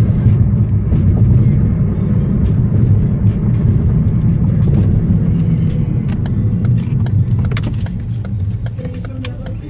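Road and engine noise inside a moving car's cabin: a steady low rumble, with a few small clicks and knocks in the last couple of seconds.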